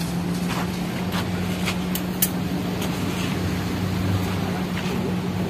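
Steady low hum of an idling car engine, with a few faint clicks about two seconds in.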